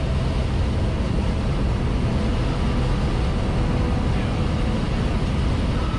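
Single-engine light aircraft heard from inside the cockpit: a steady engine and propeller drone with airflow noise as it descends on approach to land on a grass airstrip.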